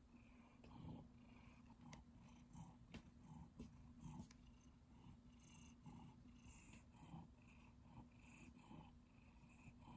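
Domestic orange tabby cat purring faintly while resting on a lap, a steady purr that swells and eases in an even rhythm with its breathing.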